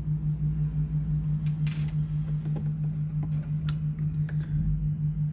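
A coin dropped into a plastic bowl of water, a short splash with a few light clicks of handling, over a steady low hum.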